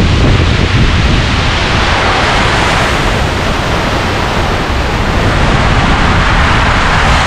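Typhoon winds and heavy rain lashing coconut palms: a loud, steady rush that eases a little midway and builds again. Wind buffets the microphone.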